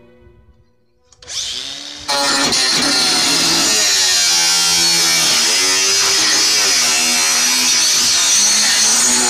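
Makita 18-volt cordless angle grinder starting up about a second in, then from about two seconds in cutting through galvanised steel corrugated roofing sheet: loud, steady grinding whose pitch wavers up and down as the disc loads in the metal.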